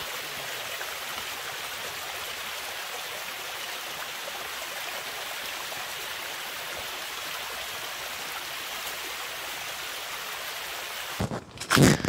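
Steady rushing of running water from a stream. It stops abruptly near the end, followed by a few sharp knocks.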